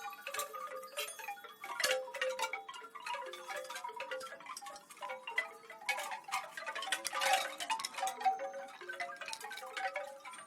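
Wind chimes ringing in an irregular, continuous jangle of many overlapping struck tones. A denser, louder flurry of strikes comes about two-thirds of the way through.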